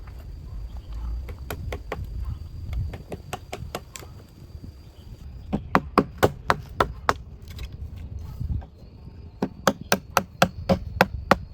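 A blade chopping wood in runs of quick, sharp strikes, about three a second, with short pauses between the runs.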